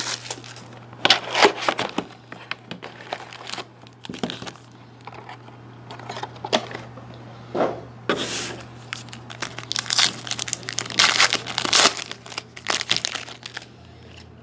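Foil wrappers of Panini Certified hockey card packs crinkling as they are pulled from the box, stacked and handled, in irregular bursts of crackling.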